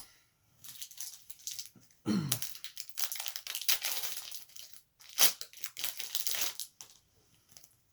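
Foil wrapper of a Pokémon trading-card booster pack crinkling and being torn open, an irregular run of crackles and rips.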